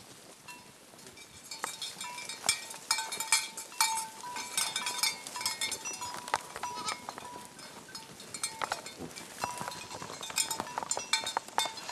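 A herd of goats on the move through dry brush and rocks, with many quick clicks and clatters that thicken about a second and a half in.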